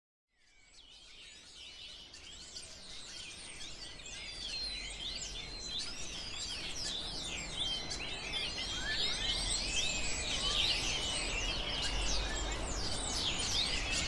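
Dense chorus of many birds chirping and calling over one another, fading in from silence and growing steadily louder.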